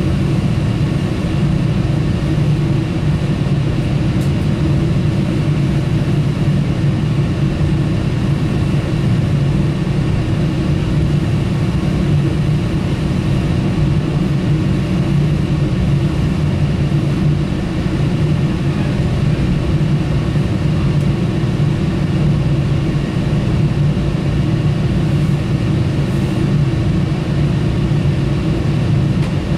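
Steady running noise of a VRE commuter train in motion, heard from on board: an even low hum and wheel noise that holds constant throughout.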